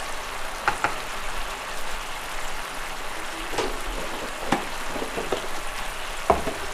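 Thick sauce simmering in a non-stick frying pan, a steady bubbling sizzle with a few short clicks.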